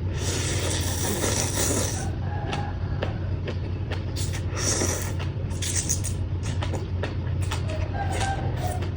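Close-up chewing and crunching of food, with sharp clicks and two longer crunchy bursts, one early and one past the middle, over a steady low hum.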